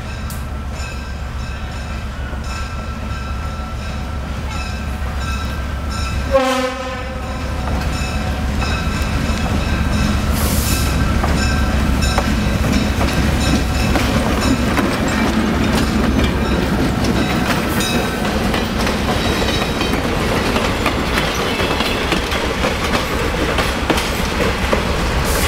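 Monon DS-50 diesel switcher locomotive running as it hauls a caboose train past, its engine drone growing louder as it draws near from about ten seconds in, with wheels clacking over the rail joints as the cabooses roll by. A brief sharp blip about six and a half seconds in.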